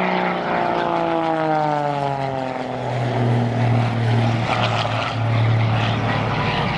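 Extra 300 SR aerobatic plane's six-cylinder piston engine and propeller making a low, fast pass. The engine note drops steeply in pitch over the first three seconds as the plane goes by, then holds a steady lower drone.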